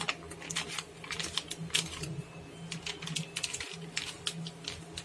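Tissue paper crinkling and crackling as hands handle and press it around a block of barfi, a string of irregular sharp little clicks over a faint steady hum.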